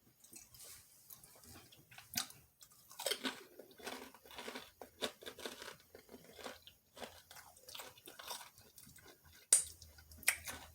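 A person biting into and chewing crispy fried food, a run of irregular sharp crunches with the loudest bite near the end.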